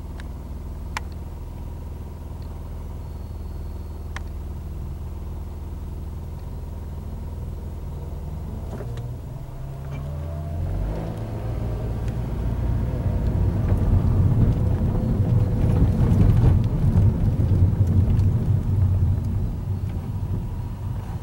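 Car engine and road noise heard from inside the cabin while driving: a steady low hum at first, then the engine pitch rises as the car speeds up about nine seconds in, followed by a louder rumble that peaks in the second half.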